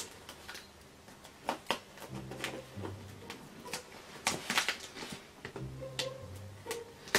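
Knife blade scraping and picking at tough plastic packing tape on a cardboard box: irregular short scratches and taps.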